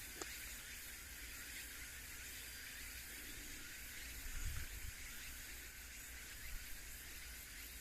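Quiet outdoor ambience: a steady high hiss, with a faint click just after the start and a brief low rumble about halfway through.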